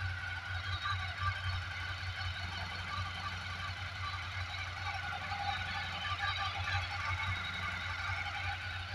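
Ducati Sport 1000S air-cooled L-twin engine idling steadily with a low, even pulse and its light rattle, which the owner takes for normal engine noise.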